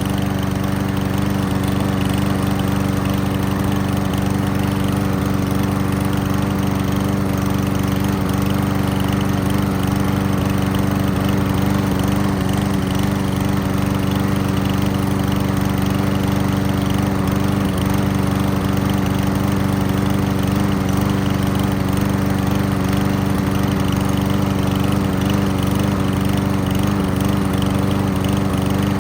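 Craftsman push mower's 5.5 hp Briggs and Stratton single-cylinder engine running at a steady speed, left running to burn off excess oil from an overfilled crankcase that got into the exhaust.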